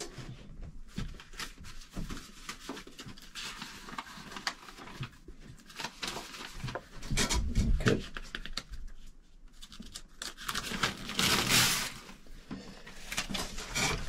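Small clicks, knocks and rustles of someone rummaging among things on a workbench for a piece of paper, with a louder stretch of paper rustling near the end.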